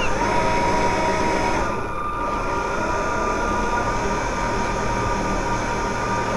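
A radio-controlled ship model's drive motors whining steadily, with several steady tones, over wind rumbling on the onboard microphone. The whine dips briefly about two seconds in.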